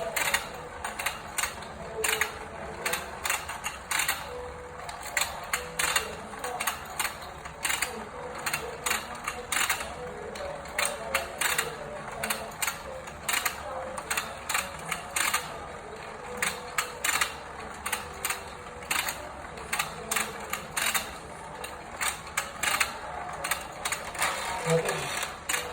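Toy fishing game's plastic mechanism clicking and rattling: dense, irregular clicks, several a second, that keep on throughout.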